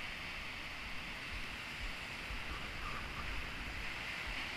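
Rough sea surf surging and washing over rocks, a steady rushing hiss, with wind buffeting the microphone.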